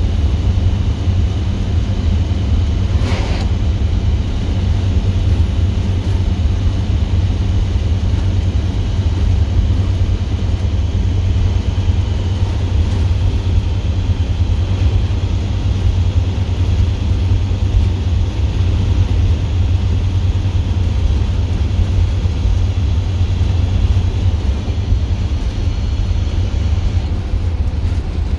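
Straight-piped International DT466E inline-six turbodiesel running steadily under way at cruising speed, a loud, deep exhaust drone heard from inside the bus cab. A brief sharp noise cuts in about three seconds in.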